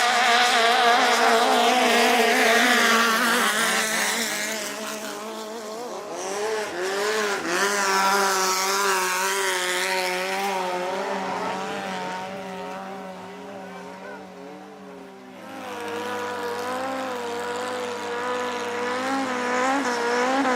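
Engines of Thai longtail racing boats running at high revs, several pitches overlapping and wavering up and down. The sound fades about three-quarters of the way through, then builds again.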